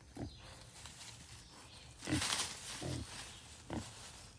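Berkshire pigs giving a few short grunts as they root in the dirt, with a brief rustle of soil being pushed up about two seconds in.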